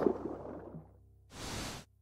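Logo-animation sound effect: a whoosh dying away over the first second, then a second short hissing whoosh about a second and a half in, over a faint low hum.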